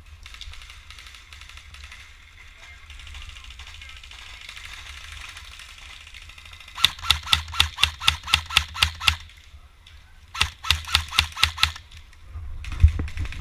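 Airsoft gun firing two strings of rapid shots, about six a second: a longer string of a dozen or so shots, then a shorter one of about eight after a pause. A single loud thump near the end.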